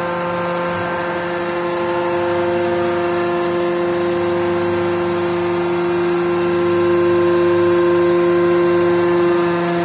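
Hydraulic press's power unit running: a steady mechanical whine from the electric motor and hydraulic pump, with several held tones over a rushing hum, getting slightly louder after about seven seconds.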